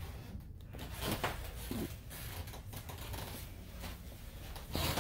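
Faint rustling and a few light clicks from a hand-held phone being moved and handled, over a low steady hum.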